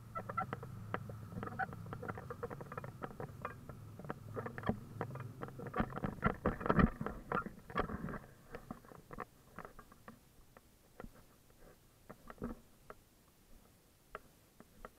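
Irregular clicking and tapping, dense over a low hum for the first eight seconds, then sparser and quieter.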